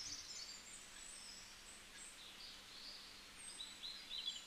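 Faint, scattered high-pitched bird chirps over a low background hiss and a faint steady hum.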